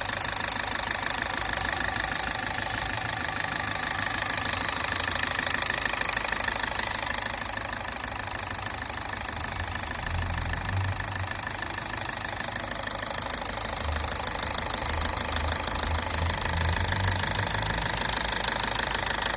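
Freshly overhauled Toyota Etios engine idling steadily in its break-in run.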